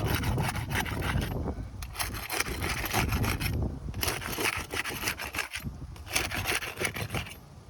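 Repeated rough scraping strokes of a flat bar working under roof shingles, in runs broken by a few short pauses.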